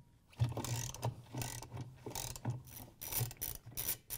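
Socket ratchet clicking through a quick run of short back-and-forth strokes as it unscrews the bolt that holds a top-load washer's agitator.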